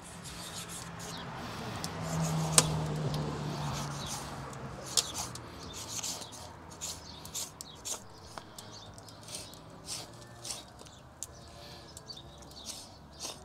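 Knife slicing and scraping through hide and flesh as a bull's head is skinned, with small birds chirping throughout. A faint low hum runs through the first few seconds, and there is one sharp click about two and a half seconds in.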